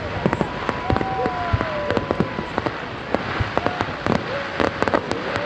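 Fireworks going off in quick succession, with many sharp bangs and crackles. A whistling tone falls in pitch from about a second in.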